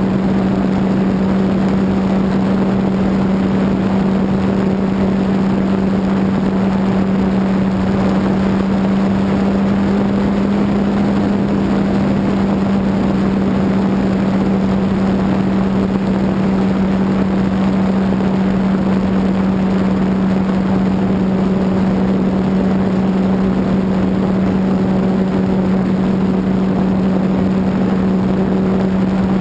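E-flite Apprentice RC plane's electric motor and propeller, heard from a camera mounted on the plane: a steady hum that holds one pitch under loud rushing wind noise.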